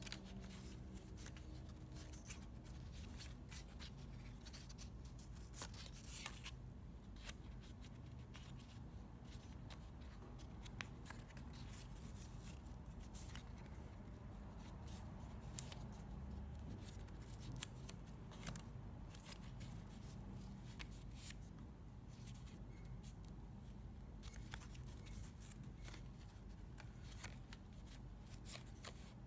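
Two paper strips being folded over each other by hand into a concertina: soft crinkles and crisp little crease clicks at an irregular pace, over a faint low room hum.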